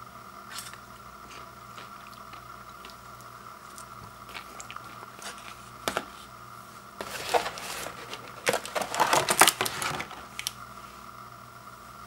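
A few light knocks, then from about seven seconds in a run of crinkling and rustling from a paper microwave popcorn bag being handled, loudest around nine seconds and stopping a little after ten.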